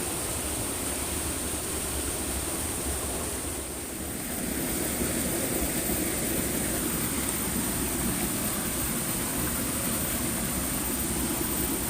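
Steady rush of flowing river water with a constant high hiss over it, dipping slightly about four seconds in.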